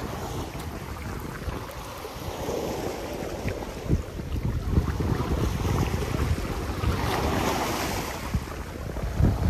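Wind buffeting the microphone over small waves washing against a rocky shoreline, with one louder wash of surf about seven seconds in.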